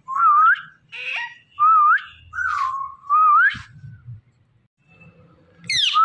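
Indian ringneck parakeet whistling a short phrase that swoops up at the end, four times in quick succession, then after a pause a steeply falling call near the end.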